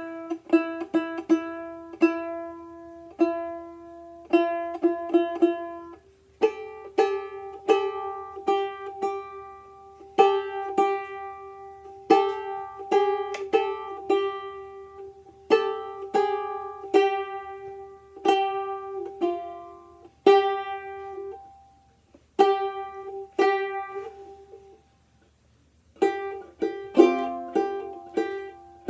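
Tenor banjolele played solo: single plucked notes picked out as a melody, each with a sharp, bright attack and a quick decay. Brief pauses fall between phrases about six seconds in and twice near the end.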